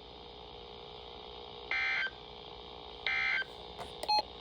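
Emergency Alert System end-of-message data tones: short screechy two-tone digital bursts about a second and a half apart, two in a row with a third starting at the very end, signalling the end of the alert message. Two quick clicky beeps come just before the third burst, over a faint steady hum.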